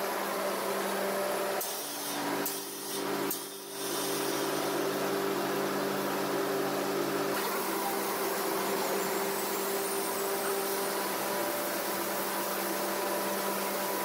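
Machinery running with a steady hum and a noisy drone, briefly dropping away a few times about two to four seconds in.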